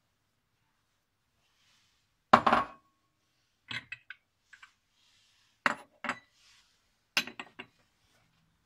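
Glass and stainless-steel cookware clinking and knocking in a few short clusters, the loudest about two and a half seconds in, as a small glass of olive oil is picked up and poured into a saucepan.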